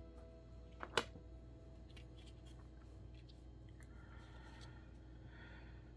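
Small metal tools being handled and set down on a cutting mat: one sharp click about a second in, then a few faint light ticks.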